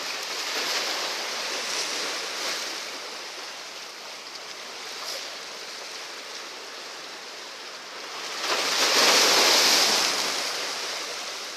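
Sea waves surging and breaking against the concrete tetrapods of a breakwater, the wash rising and falling, with a louder wave crashing about eight and a half seconds in and dying away over a couple of seconds.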